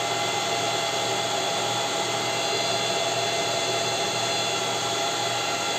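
ASIC bitcoin miner's cooling fans running at speed while the miner hashes: a steady whir with several fixed whining tones over it.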